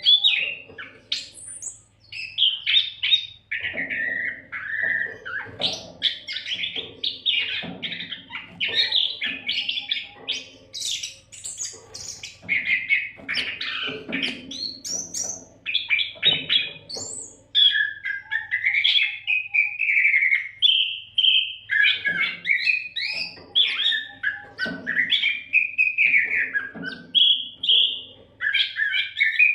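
Oriental magpie-robin (kacer) in full song, pouring out a long, varied, almost unbroken stream of whistled phrases, chattering notes and pitch glides.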